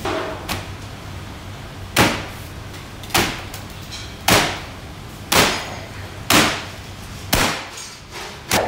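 Hand-pulled lagman noodle dough slapped against a stainless steel worktable as it is stretched: sharp slaps about once a second, seven in all, starting about two seconds in.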